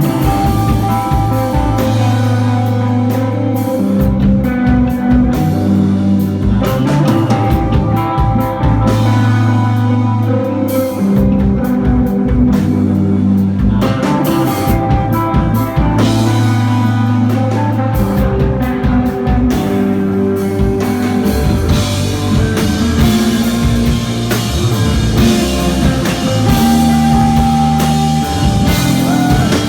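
Live rock trio of electric guitar, bass and drum kit playing a slow, spacey instrumental: a droning, swirling guitar line over long held bass notes and a steady drum beat. The cymbals grow busier about two-thirds of the way through.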